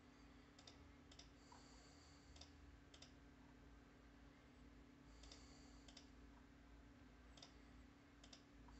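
Faint, sparse keystrokes on a GK630K mechanical keyboard with Kailh Red linear switches: single key presses and releases clicking a few at a time, with pauses between.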